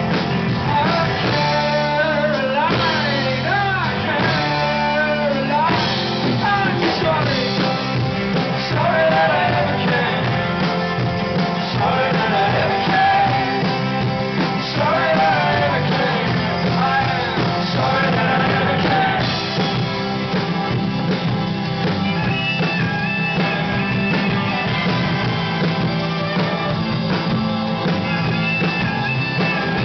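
Live rock band playing a song: a singer's voice over guitars and the rest of the band. The singing stops about two-thirds of the way through and the band plays on instrumentally.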